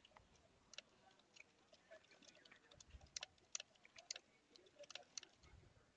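Computer keyboard keys clicking faintly and irregularly as someone types a line of text.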